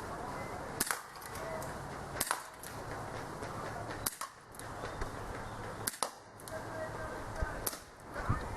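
ASG Dan Wesson .357 CO2 revolver firing steel BBs: a string of sharp single pops, one about every one and a half to two seconds.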